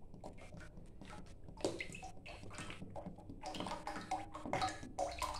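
Cooking oil poured from a bottle into a wok, glugging and splashing unevenly, the pouring picking up about a second and a half in.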